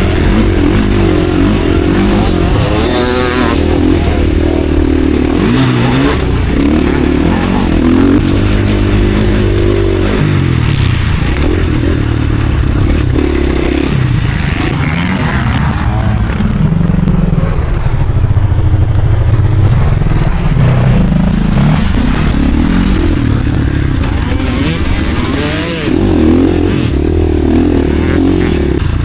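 KTM SX-F Factory Edition single-cylinder four-stroke motocross bike engine, revving up and down hard as it is ridden round the track. Around the middle the revs fall away and then build again.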